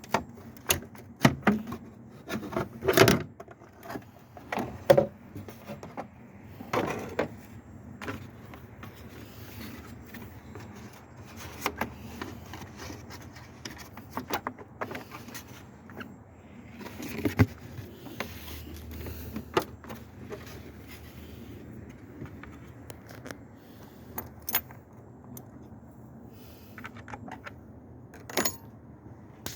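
Hand tools and metal parts clinking, knocking and scraping at irregular intervals during work on a car's intercooler. The strokes are thickest in the first several seconds, grow sparse, and one loud knock comes near the end.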